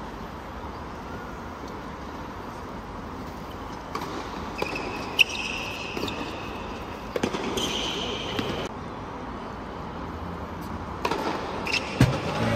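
A tennis point on a hard court: sharp racket-on-ball hits about five and seven seconds in, with high squeaks from the players' shoes on the court, over a low hush from the crowd. Crowd noise rises near the end as the point finishes.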